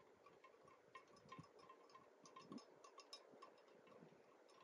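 Near silence: outdoor quiet with faint, irregular small ticks and clinks.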